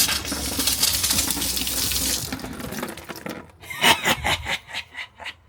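Water running hard from a faucet into a sink and spraying, then dying away about two and a half seconds in. A scatter of drips and splashes follows.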